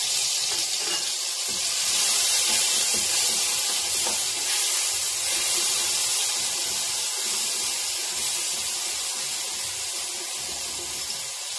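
Ginger-garlic paste sizzling in hot oil in a steel kadai as it is stirred with a ladle: a steady hiss that eases slowly toward the end.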